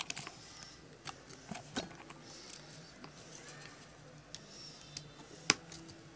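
A few faint, sharp plastic clicks and taps from handling a homemade toy prop, the loudest click about five and a half seconds in, over a quiet background.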